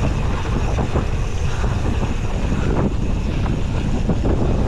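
Wind buffeting a GoPro's microphone while riding a mountain bike fast down a dirt trail, a steady heavy rumble with scattered short rattles and bumps from the bike over the ground.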